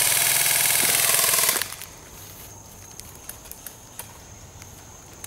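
Airsoft electric gun firing one full-auto burst of about a second and a half: a loud, even mechanical buzz that cuts off abruptly. Faint small clicks follow.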